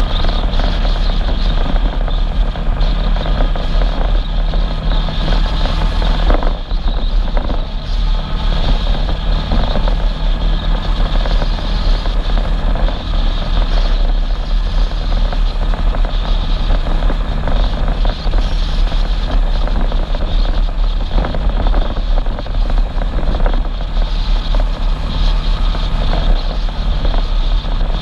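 Side-by-side UTV engine running steadily under way on a gravel road, mixed with a low road and wind rumble on the hood-mounted camera.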